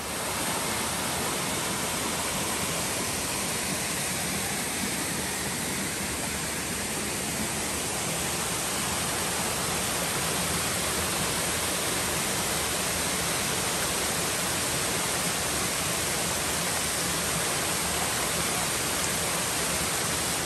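Rushing water of a stream, a loud, steady, even rush that starts and stops abruptly.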